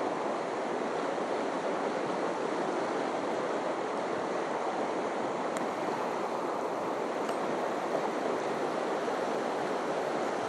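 Small mountain stream rushing steadily over its bed.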